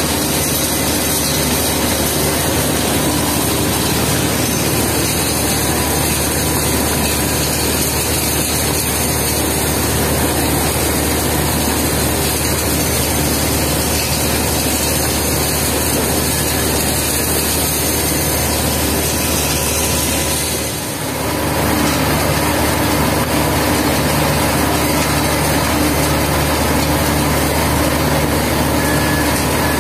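Steady, loud drone of an asphalt mixing plant's machinery: electric drive motors and conveyors running, mixed with the diesel engines of a wheel loader and a dump truck. The sound dips briefly about two-thirds of the way through, then carries on the same.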